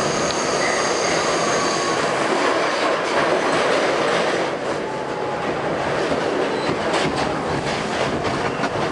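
Westinghouse-propelled R68 subway train running through a tunnel, heard from aboard: a steady rush of wheels on rail with a high wheel squeal in the first couple of seconds. From about halfway there is a run of clicks over the rail joints as it comes into a station.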